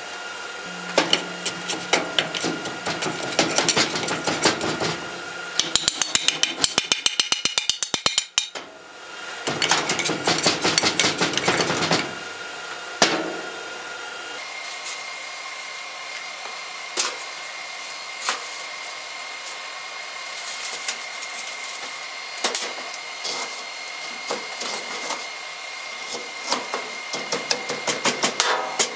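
Metal clinking and knocking as scrap steel is dropped and tamped into a square steel tube canister. A quick rattling run of taps comes a few seconds in, with scattered knocks after it.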